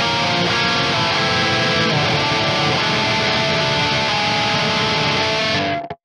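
Heavily distorted electric guitar, a Schecter ATX V with Fishman Fluence Modern pickups played through a Mesa Boogie Dual Rectifier amp model, plays a dense death-metal riff. The sound cuts out abruptly for a split second near the end.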